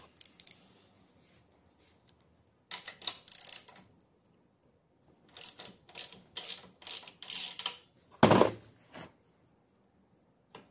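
Hand tools clicking and clinking against the metal front axle and hub of a small dirt bike, in several short runs of quick clicks, with a heavier knock about eight seconds in.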